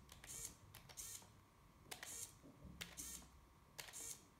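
Faint clicks of gamepad buttons, each followed by a brief whir of a small hobby servo swinging between its up and down positions, about five times.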